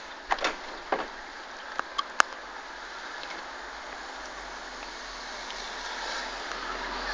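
A few sharp clicks and taps in the first two seconds, from the phone camera being handled, over a steady outdoor hiss that grows slowly louder toward the end.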